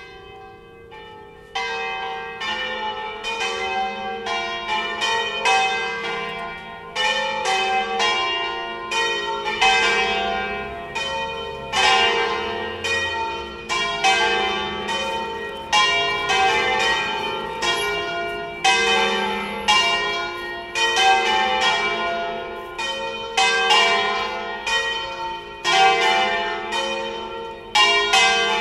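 Full peal of a four-bell bronze church ring in F3, the bells swung full circle by electric motors in the Veronese style, cast by the Colbachini foundry of Padua in 1900 and 1926. Strikes overlap in a dense, irregular jangle of ringing tones, faint at first and loud from about a second and a half in.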